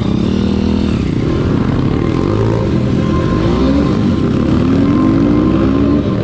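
Pit bike engine running while riding, its pitch rising as it accelerates, once about two and a half seconds in and again more slowly through the second half.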